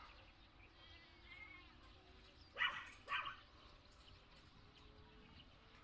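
Two short animal calls, about half a second apart, over faint background noise.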